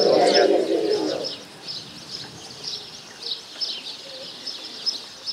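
Small birds chirping, short high calls repeating all through. For about the first second there is a louder, lower murmur of many voices, the congregation's spoken response to the announcement of the Gospel.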